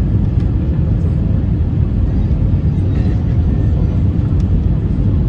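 Steady low rumble of engine and airflow noise inside a jet airliner's cabin, heard by the window as the plane descends to land.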